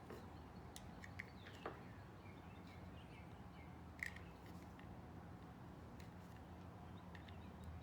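Near silence: a steady low hum with a few faint light clicks, small metal parts being handled as the pin is pushed through the pistol frame.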